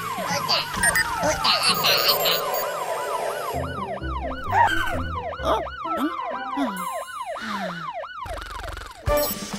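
Cartoon fire-truck siren in a fast yelp, its pitch rising and falling about three times a second, with music underneath. It stops just before the end.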